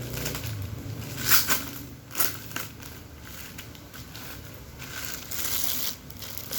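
Plastic packaging crinkling and crackling as it is handled and pulled off a soundbar, in irregular bursts with a longer rustle near the end.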